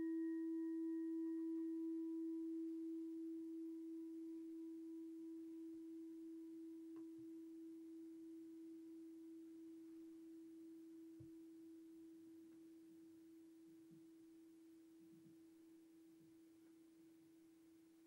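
Meditation bell struck once, ringing with one steady tone and faint higher overtones that slowly fades away over about fifteen seconds with a gentle waver. It marks the end of a period of silent meditation.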